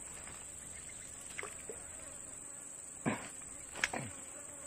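Steady high-pitched insect drone, with a few short swishing sounds as a fishing rod is recast, the loudest about three and four seconds in.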